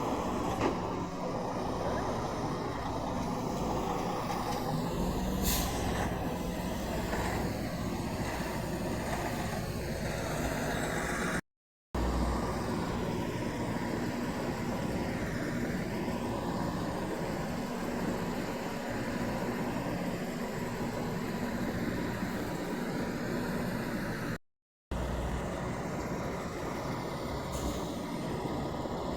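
Semi truck diesel engine running steadily at idle, with a short hiss about five and a half seconds in. The sound drops out twice for about half a second.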